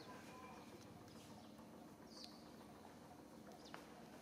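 Near silence: faint outdoor ambience with a few brief, faint high chirps, one falling in pitch about two seconds in.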